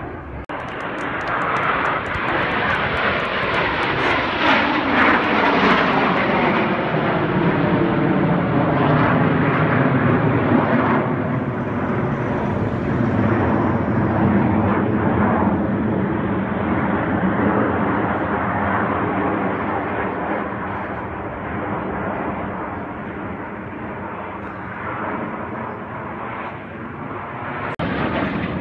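Formation of Aermacchi MB-339 jet trainers passing overhead, their Viper turbojets giving a loud, rushing jet noise. The pitch sweeps downward as they go by. The noise slowly fades in the last third.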